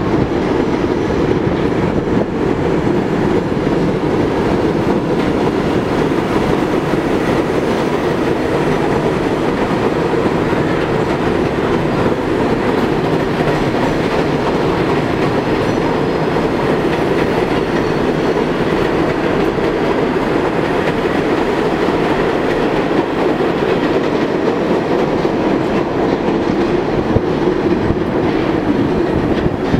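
New York subway trains running on an elevated steel line: vintage R33/R36 Redbird cars and a Kawasaki R188 train. Steel wheels on the elevated track make a loud, steady rumble.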